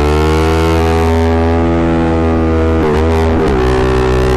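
Yamaha MT-07's 689 cc parallel-twin engine through a full Akrapovic exhaust, pulling under throttle with its pitch climbing slowly. The revs dip and recover briefly about three seconds in. The sound is loud enough to overload the microphone.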